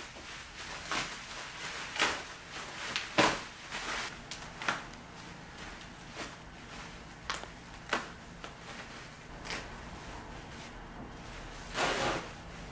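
Plastic wrap and bubble wrap crinkling and rustling as they are pulled off a boxed vanity, in separate short crackles, with the sharpest ones a few seconds in and a longer rustle near the end.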